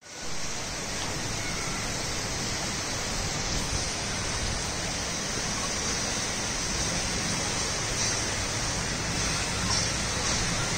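Heavy monsoon rain falling steadily, a dense even hiss with a low rumble underneath.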